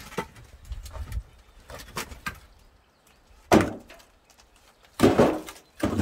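Split firewood logs being handled and loaded onto a wheelbarrow: a few light wood-on-wood knocks, then two loud clunks, one about halfway through and one near the end.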